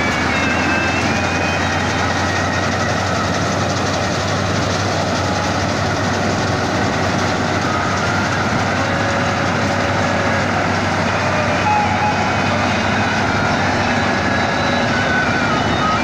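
Standard combine harvester running steadily while cutting a rice crop: the constant drone of its engine under a dense mechanical clatter from the header and threshing works.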